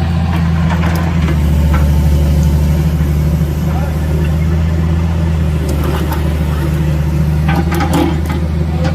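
Excavator's diesel engine running steadily at idle, with a few sharp clicks and knocks near the end.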